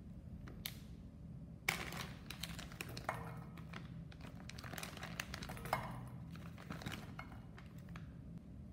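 Plastic bag of dried shiitake mushrooms crinkling and rustling as it is handled and tipped, with light knocks of the dried caps dropping into a stainless steel bowl.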